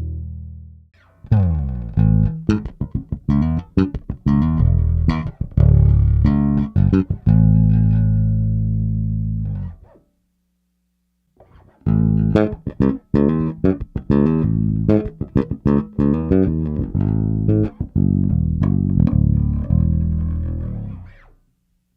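Foals FJB6-V five-string electric bass played solo: two phrases of quick, percussive notes over held low ones, with a short pause between them about ten seconds in.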